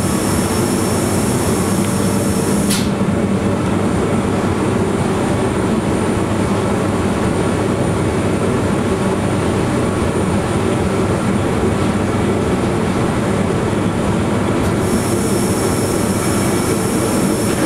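Monte Generoso electric rack-railway railcar running uphill, heard from inside the car as steady running noise of motors, rack gear and wheels. The high hiss drops away suddenly about three seconds in and comes back near the end.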